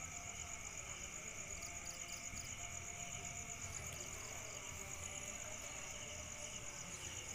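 Night insects trilling steadily: a continuous high-pitched, finely pulsing chorus over low background noise.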